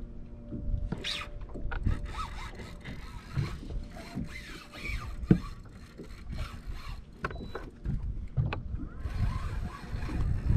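Irregular knocks, thumps and scrapes on a bass boat's deck, with water lapping at the hull.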